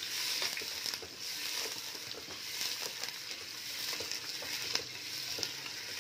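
Chicken pieces frying in hot oil in a steel pressure cooker: a steady sizzle, with small clicks and scrapes as a wooden spatula stirs them against the pot.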